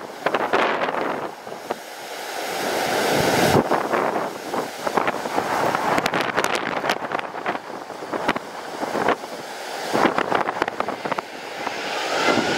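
Strong, gusty wind buffeting the microphone, swelling and dropping with each gust and crackling roughly.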